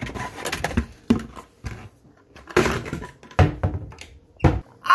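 Rummaging in a cupboard: irregular knocks and clatters of things being shifted, with a few louder thumps, as a bucket is pulled out.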